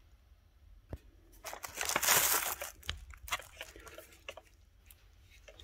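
Handling noise from a new Einhell impact drill and its packaging: a sharp click about a second in, then a couple of seconds of rustling and crinkling, followed by scattered light clicks and knocks.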